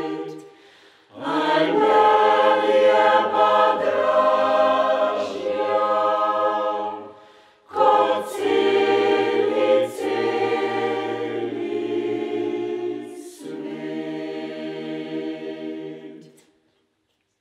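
Mixed choir of women's and men's voices singing a cappella in harmony, in phrases separated by short pauses for breath; the last phrase ends shortly before the end.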